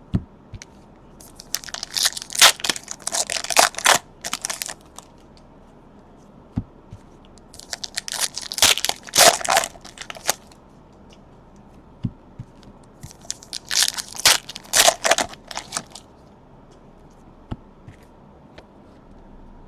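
Plastic trading-card pack wrappers being crinkled and torn open by hand, in three spells a few seconds apart, with a few light clicks in between.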